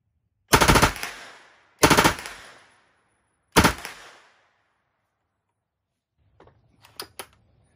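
Stemple/BRP STG-76, an open-bolt 9mm submachine gun fed from a Suomi drum, firing three short full-auto bursts of a few rounds each, about a second apart. Each burst trails off in an echo. The third and shortest burst empties the drum, and a few light clicks follow near the end.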